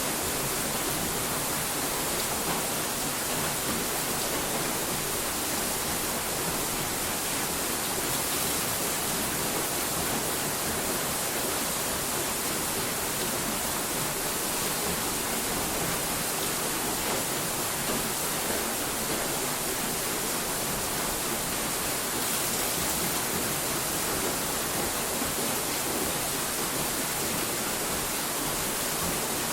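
Steady, unchanging hiss like static or white noise, with no breaks or separate events.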